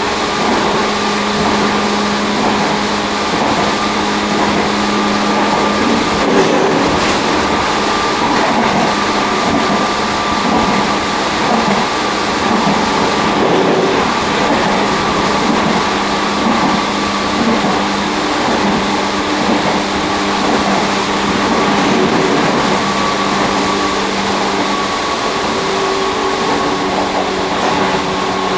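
Tobu 1800 series electric motor car running at speed, heard from its vestibule deck: steady rolling noise with constant humming tones and a few light knocks.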